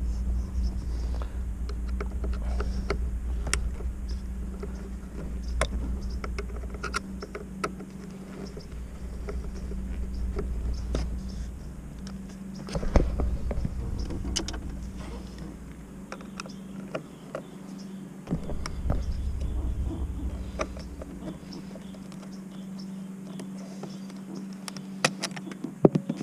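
Scattered small clicks and taps of a screwdriver and fingers working the screws and plastic housings of a steering-wheel cruise control switch, over a steady low rumble that drops out twice in the second half, with a faint steady hum.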